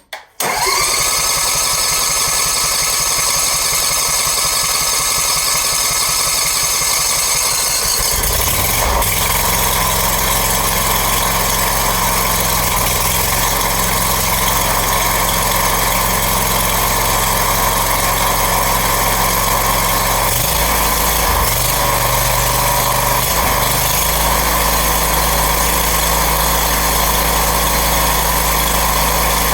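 Brand-new Briggs & Stratton engine on a Scag mower starting for the first time with the choke on, catching within about half a second and running steadily. About eight seconds in its note changes and it settles into a smoother, even run.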